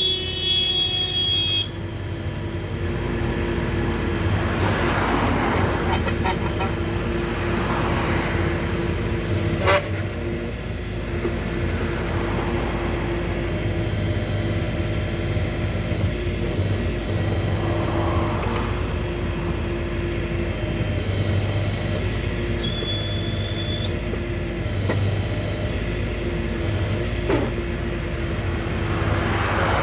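Massenza MI3 drilling rig's engine and hydraulic power pack running steadily while casing is pulled from the borehole, the noise swelling and easing every few seconds. A single sharp metallic clank sounds about ten seconds in.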